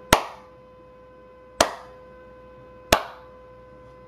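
Three single hand claps, sharp and spaced roughly a second and a half apart, made as a demonstration of someone clapping off the beat.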